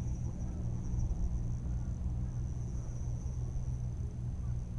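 Wind rumbling on an open-air microphone, with a steady high-pitched insect buzz running through it.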